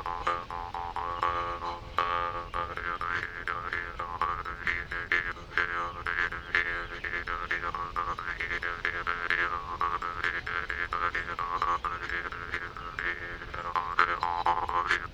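Jaw harp played continuously: a steady buzzing drone struck by repeated plucks, with its overtones swept up and down to make the melody.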